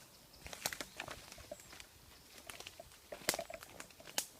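Footsteps through forest undergrowth: irregular crackles and twig snaps, with sharper snaps about three seconds in and again near the end.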